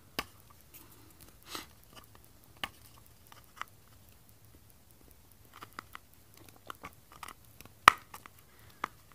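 Scattered clicks and small crackles of a hard plastic case being handled while tape is picked and peeled off it, with one sharp click about eight seconds in.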